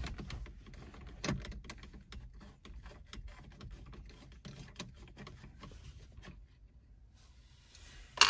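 Screwdriver backing out the last screws from the plastic center console trim: a run of small clicks and scrapes, with a louder click about a second in and a sharp click near the end.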